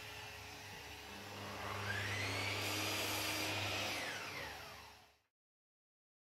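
An electric motor spinning up with a rising whine over a steady hum, running for a couple of seconds, then dropping in pitch and fading out about five seconds in.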